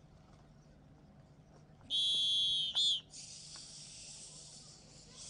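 Drill instructor's whistle: one long blast about two seconds in, then a short one, signalling the trainees to begin. A steady hiss follows.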